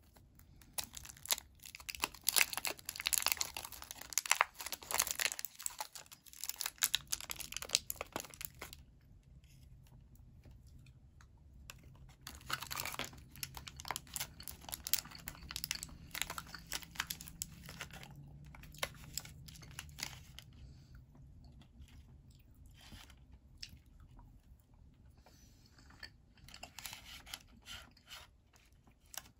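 Thin foil wrapper crinkling and tearing as it is peeled off a hollow chocolate egg, then the chocolate shell snapping as pieces are broken off, with chewing of the chocolate between sharp cracks.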